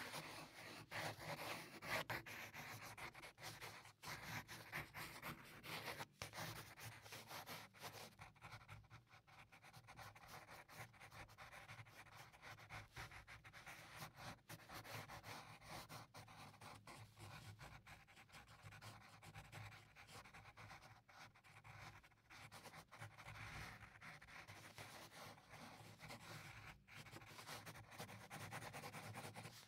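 Pencil scratching on paper in uneven sketching and shading strokes, faint.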